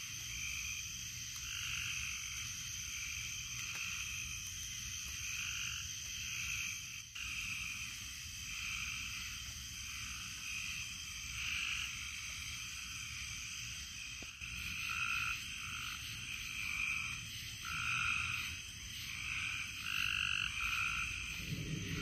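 A chorus of frogs calling at night: many short croaking calls overlap and repeat every second or so over a steady high buzz. The calls grow louder and denser in the second half.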